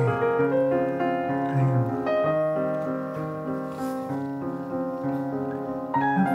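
Background piano music with slow, held notes.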